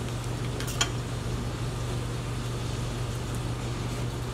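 Steady low machine hum of the room, with a single short click a little under a second in.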